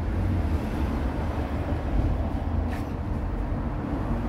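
Steady low rumble of background traffic.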